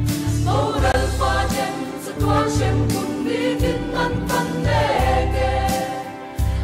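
A mixed choir of women's and men's voices singing a hymn in Mizo in full harmony, with deep low notes underneath.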